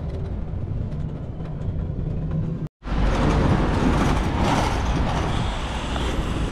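Low, steady rumble of a bus engine heard from inside the moving bus. It cuts off abruptly a little under three seconds in, giving way to louder street noise with road traffic.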